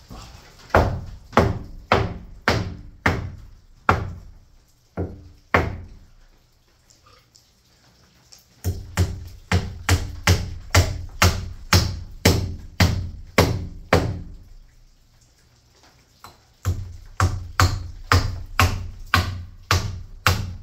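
Hammer striking the wooden framing overhead: three runs of steady, evenly spaced blows at about two a second, with short pauses between runs.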